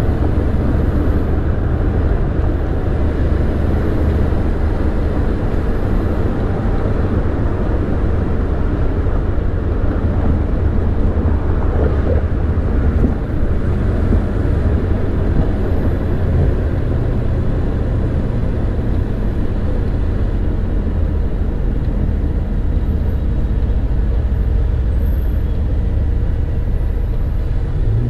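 Car driving on a city street: a steady low rumble of engine and tyres on the road.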